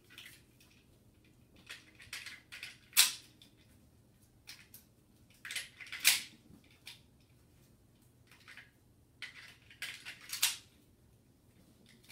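Sharp metallic clicks and clacks from a freshly cleaned 9mm pistol being function-checked by hand, the slide and trigger being worked. The loudest come about three seconds in, about six seconds in, and near the ten-second mark, with lighter clicks between.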